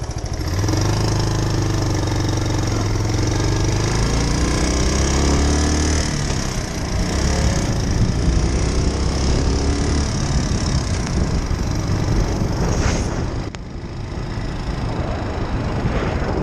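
2001 Suzuki Savage's 652cc single-cylinder engine running and being revved: it picks up about half a second in, the pitch climbs through the middle, and it eases off briefly near six and ten seconds and again about thirteen seconds in.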